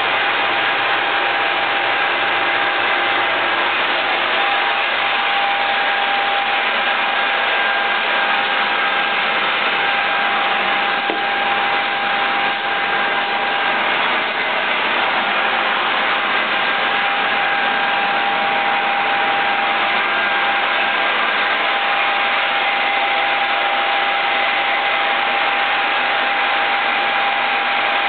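Soviet 2L614 horizontal boring machine running, a steady mechanical noise with a constant tone from its drive.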